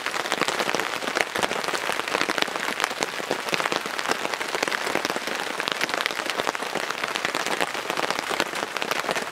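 Steady rain falling on a nylon tarp overhead: a dense, even hiss of countless small drop hits.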